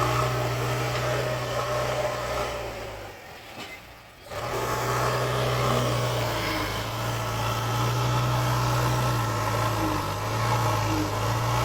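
JCB 3DX backhoe loader's diesel engine running steadily under work. It dies down about three seconds in, comes back abruptly a little after four seconds, and wavers slightly in pitch near the end.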